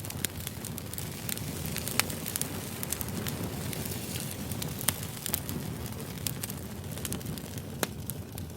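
Campfire crackling: irregular sharp pops and snaps over a steady low noise from the burning wood, the loudest pops about two seconds in and near five seconds.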